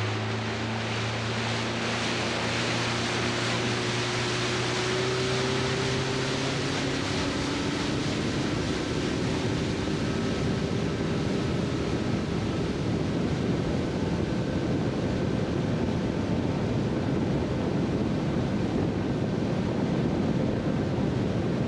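A fishing boat's motor getting under way, its hum rising slightly in pitch over the first several seconds. It is then buried under a steady rush of wind and water as the boat runs at speed, with wind buffeting the microphone.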